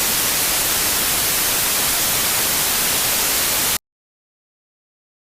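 Steady static hiss, even across all pitches, that cuts off suddenly a little under four seconds in, leaving dead silence.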